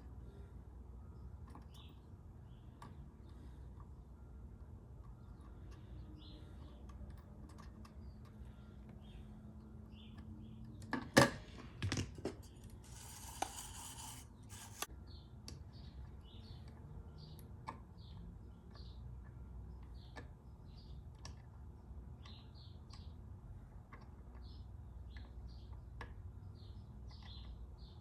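Small clicks and taps of tools on an Xbox One controller circuit board while the joystick's pins are desoldered, with a sharp loud click about eleven seconds in followed by a brief hiss.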